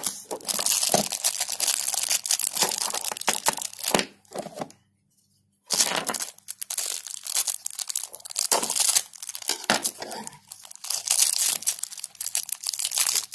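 Plastic packaging being handled and opened by hand: dense crinkling and crackling with sharp little clicks, stopping for about a second around five seconds in, then going on.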